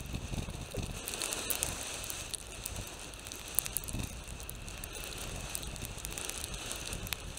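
Bicycle ride on a gravel path heard through a bike-mounted action camera: a steady crackling, crunching noise from the tyres and mount, with a few sharp little knocks.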